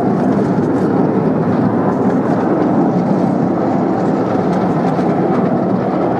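Ride-on miniature railway train running along its track, a steady rumble.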